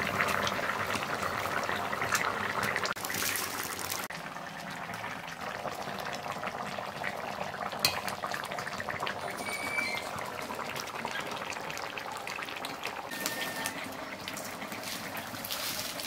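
Fish curry boiling in a steel kadai: a steady dense crackle of bubbles, louder for the first few seconds and then settling.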